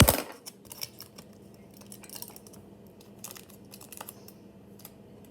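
A sharp knock at the start, then scattered light clicks, taps and faint crinkles of craft materials being handled and shaped by hand.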